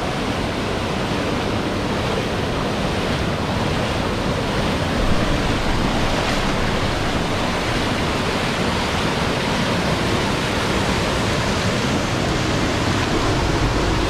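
Small waterfalls and rocky stream cascades rushing over boulders into pools: a steady, loud wash of falling water.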